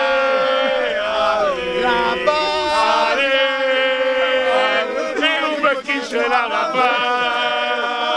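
A group of men chanting a football song together in the open, holding long sung notes in unison with fists raised. Near the end there is a shout of "Yes!"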